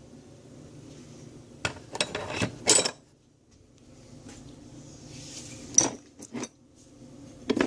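Metal hand tools, wrenches among them, clinking and knocking together as they are handled: a few sharp clanks about two seconds in, a short lull, then a few more knocks near the end.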